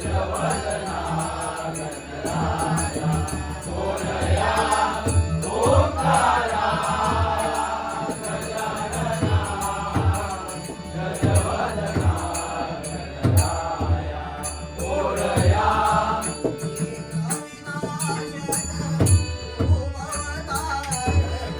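Traditional Konkan devotional bhajan: a sung melodic line over steady drum strokes and rapid small-cymbal beats.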